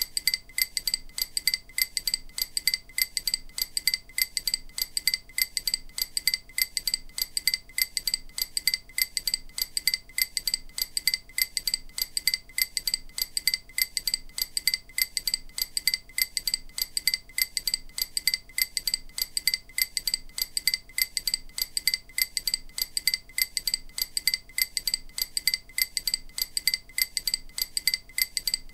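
EMDR bilateral-stimulation audio: a short, bright, glassy-metallic ping repeating at a quick, even pace, each one the same high ringing tone. It is the auditory cue meant to alternate between the left and right ears to stimulate both halves of the brain in turn.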